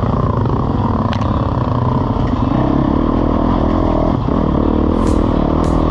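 Trail motorcycle engine running while riding, its pitch shifting with the throttle, with clatter from the bike. There is a sharp click about a second in and two sharp ticks near the end.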